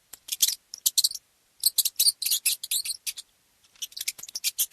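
Mouse squeaking: a rapid, irregular series of short, high-pitched squeaks in quick clusters.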